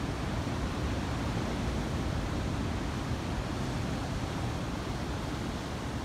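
Wind blowing across the microphone: a steady rush of noise, heaviest and most unsettled at the low end.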